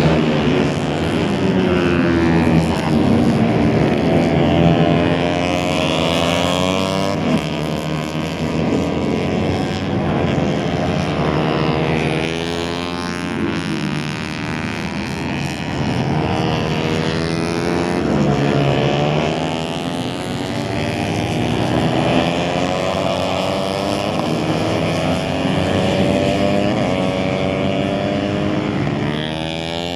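Several motorcycle engines racing around a circuit, overlapping, their pitch rising and falling as the bikes accelerate out of corners and back off.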